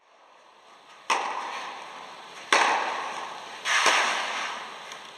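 Tennis ball hit by rackets three times in a rally, about a second and a half apart, each hit followed by a long echo in an indoor tennis hall.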